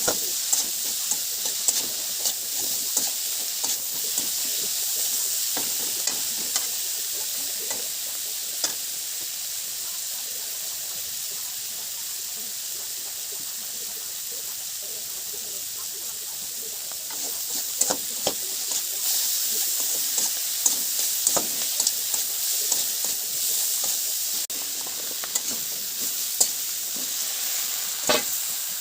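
Food sizzling as it fries in oil in a pan, with a spatula or spoon scraping and knocking against the pan as it is stirred. The stirring grows busier about two-thirds of the way through.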